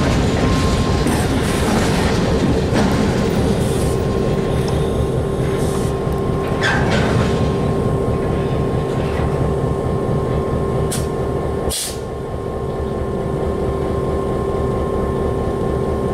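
Freight train of covered hopper cars moving slowly and coming to a stop, with a steady rumble and an even tone underneath. A few sharp clanks and squeaks come between about six and twelve seconds in.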